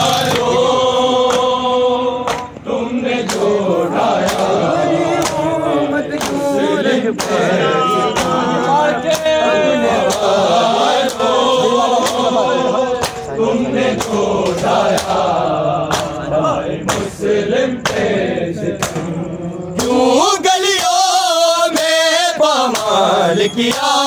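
A crowd of men chanting a noha in unison, with a steady rhythm of sharp open-hand slaps from matam chest-beating keeping time. Near the end a single voice takes the lead line.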